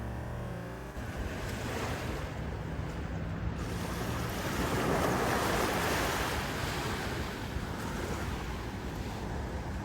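Ocean surf washing on the beach, one wave swelling to its loudest about five seconds in and then easing off, with wind rumbling on the microphone. Background music cuts off about a second in.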